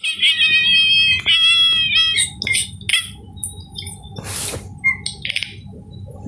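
Gray-and-white domestic cat calling with its mouth open: a couple of long, wavering, squeaky meows, then a few shorter calls, and a short breathy burst a little after four seconds.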